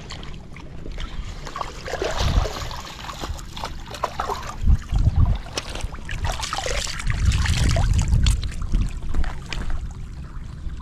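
Shallow lake water sloshing and splashing as hands release a freshly caught carp into a mesh keep net at the water's edge. Several dull low thumps of handling come through the camera.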